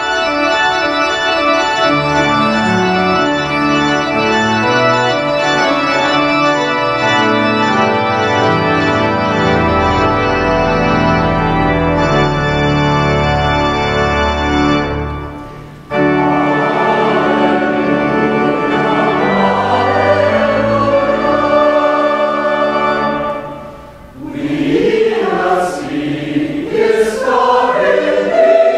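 Pipe organ playing, with a brief pause about fifteen seconds in; about three-quarters of the way through, the congregation starts singing a hymn with the organ.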